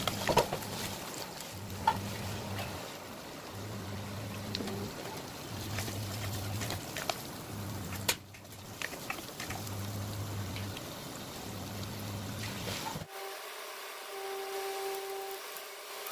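Carrot slices sizzling in hot oil in a nonstick wok, stirred with a spatula that scrapes and clicks against the pan now and then.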